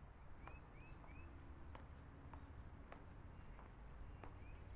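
Quiet outdoor ambience: a bird gives a few short rising chirps, three about half a second in and two more near the end. Footsteps tap about every half second or so over a low background rumble.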